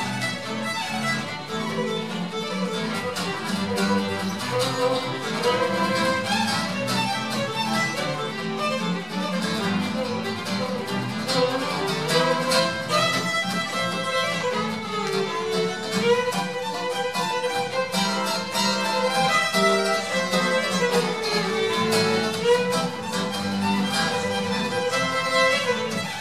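Fiddle and acoustic guitar duo playing a traditional tune: the fiddle bows the melody, sliding into and between notes, over a steady guitar accompaniment.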